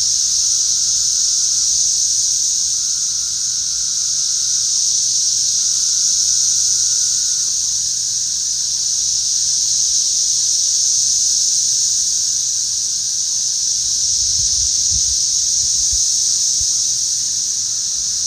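Loud chorus of many cicadas buzzing in a steady high-pitched drone that swells and eases slowly, with a few low bumps near the end.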